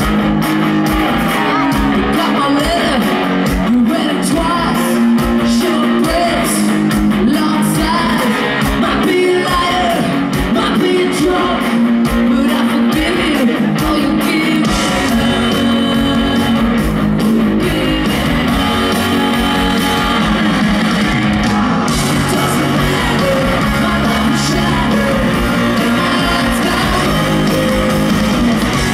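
Live ska-punk band playing at full volume, with a woman singing lead over electric guitar and drums, heard through the PA from the crowd.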